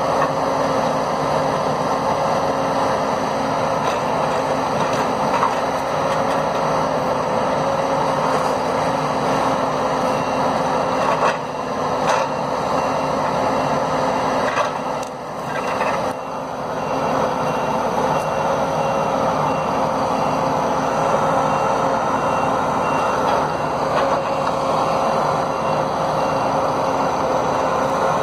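Komatsu 895 forwarder's diesel engine running steadily under a constant whining tone while its hydraulic crane works, dipping briefly twice near the middle. A faint high beep repeats at an even pace through much of the second half.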